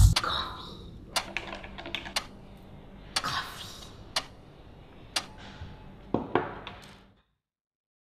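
Scattered light clicks and taps, about eight of them at irregular intervals, over a faint low hum that stops about seven seconds in.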